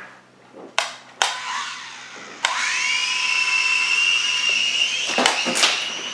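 Air Hogs Axis 300X toy remote-control helicopter's small electric rotor motors spinning up with a rising high whine about two and a half seconds in, then running steadily. A couple of sharp knocks come before it, and two more near the end.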